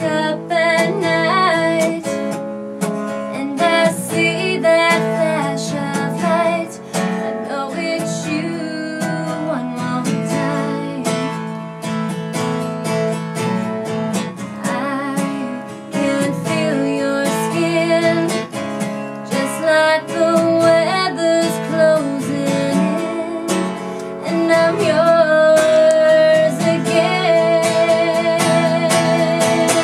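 A woman singing a slow country song to her own strummed acoustic guitar, performed live.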